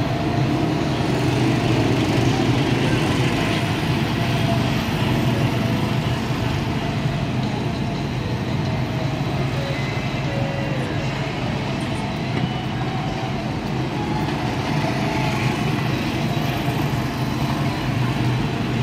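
Several go-kart engines running steadily as the karts circle the track, a continuous drone whose pitch wavers a little as they speed up and slow down.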